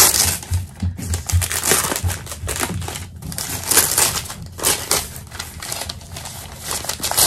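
White packing paper being pulled open and crumpled by hand: rapid, irregular crinkling and rustling.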